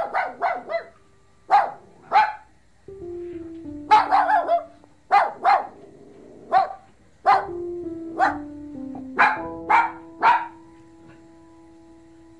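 Puppies barking in short, high yaps, often several in quick succession, over background music with held notes that step downward.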